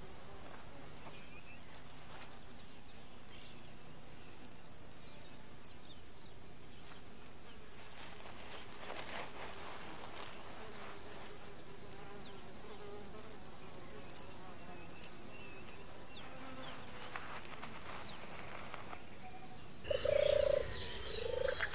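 A steady, high, fast-pulsing chirr from an insect chorus, with light rustling and scratching through the middle. The chorus cuts off about two seconds before the end, and a few short, lower sounds follow.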